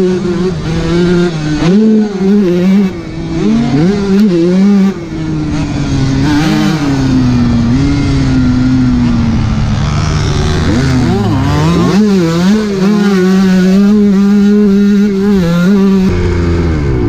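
Kawasaki KX125 two-stroke motocross bike engine being ridden hard around a dirt track. The pitch jumps up and down as the throttle is blipped over bumps and jumps, slides down through a slower stretch, then holds high and steady on a straight before falling as the throttle closes near the end.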